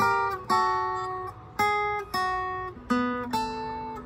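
Acoustic guitar playing a slow phrase of plucked double stops, about six in all. The two-note pairs rock back and forth in pitch, and each rings and fades before the next is struck.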